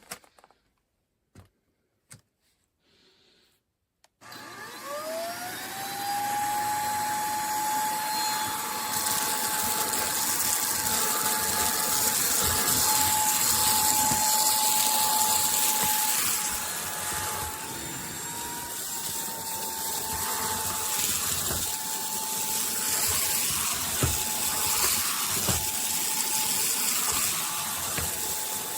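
Toshiba Torneo VC-CLS11-S cordless stick vacuum cleaner switched on after a few small clicks, about four seconds in. Its motor whine rises over a couple of seconds to a steady pitch and keeps running with the rush of air, with a few light knocks later on.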